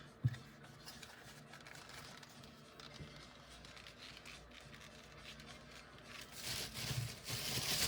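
Hands handling a knife and its leather sheath: a single click just after the start, quiet, then about two seconds of rustling and scraping with a few soft knocks near the end.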